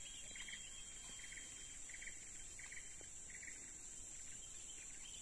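Faint insect chorus: a steady high-pitched drone with a short pulsed chirp repeating about every three quarters of a second.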